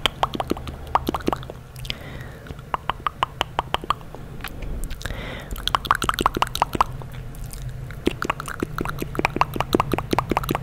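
ASMR mouth sounds close to the microphone: quick runs of wet tongue and lip clicks, several a second, with short pauses between runs. A steady low hum lies underneath.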